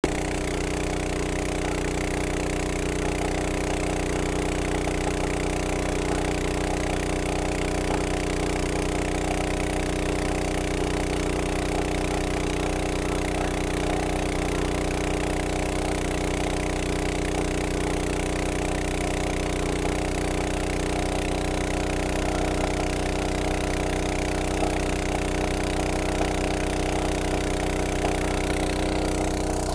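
Small petrol-engine water pump running at a steady, even speed, pumping drilling mud through its hose during borehole drilling.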